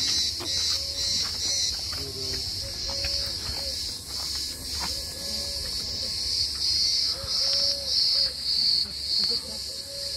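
Cicadas chorusing, a loud high buzz that pulses in a steady rhythm, with scattered footsteps on stone steps and gravel.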